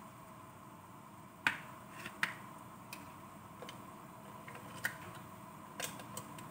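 A large aluminium pot on a gas stove giving irregular sharp ticks and pops, about six of them, the loudest about a second and a half in. A steady faint hum runs underneath.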